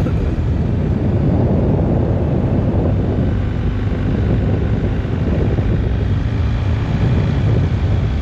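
Wind rushing over the microphone over a 2022 BMW R1250GSA's boxer-twin engine running at a steady riding speed.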